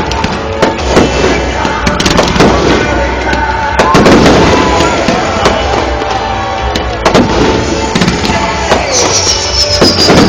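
Aerial fireworks going off in rapid succession: a dense run of booming bursts and crackles, one after another with no pause.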